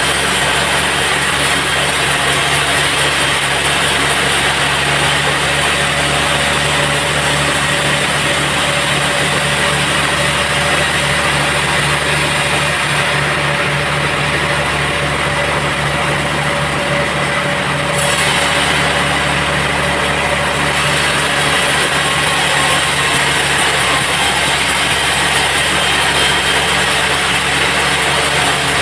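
Sawmill bandsaw machinery running steadily and loud, a continuous mechanical drone with no distinct cuts or impacts.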